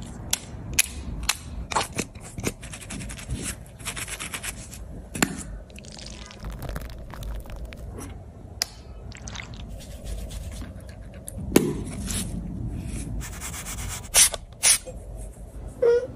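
Sharp clicks of pet nail clippers cutting a dog's claws, then scraping and rubbing as a finger toothbrush brushes the dog's teeth, with more scattered clicks near the end.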